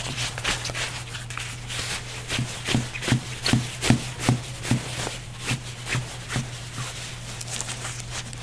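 White drapery fabric rustling as it is bunched and pushed along a wire threaded through its gathered top pocket, in a quick irregular run of rubbing strokes. A steady low hum lies underneath.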